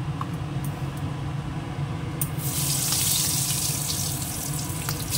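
Eggplant pieces sizzling in hot oil in a kadai, a dense hiss that starts suddenly about two seconds in, over a low steady hum.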